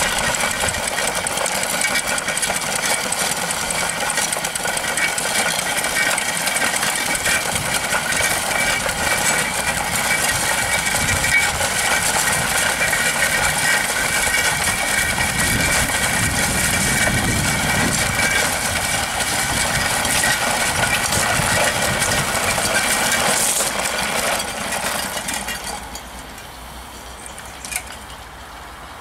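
2-inch scale Allchin live-steam traction engine running steadily, its steam exhaust and moving parts clattering evenly. The sound drops to a quieter level about 25 seconds in.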